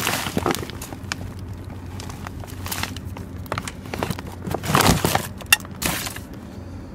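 Plastic and paper packaging rustling and crinkling in irregular bursts as bags of pet food and cat litter are shifted by hand in a dumpster, with one sharp click about five and a half seconds in.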